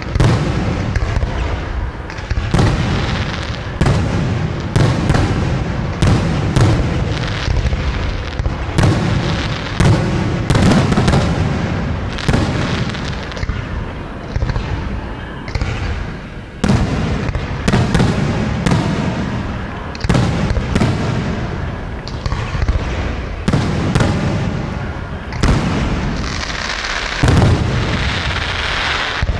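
Aerial fireworks shells bursting in quick succession, a bang every second or less, each followed by a low echoing rumble, with a stretch of hissing crackle near the end.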